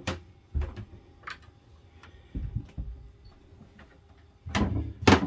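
Scattered knocks and clicks from moving about a boat's wooden cabin, with low thuds about two and a half seconds in and a louder clatter of knocks near the end.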